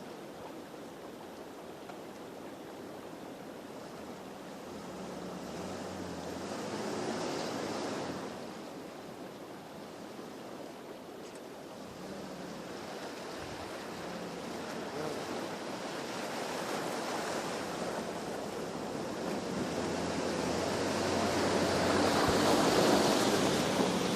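Rushing floodwater of a river, with a vehicle engine running faintly underneath. The water noise swells about six to eight seconds in, then builds steadily toward the end.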